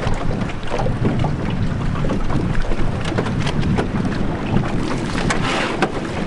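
Wind buffeting the microphone over splashing water, with many short, sharp splashes.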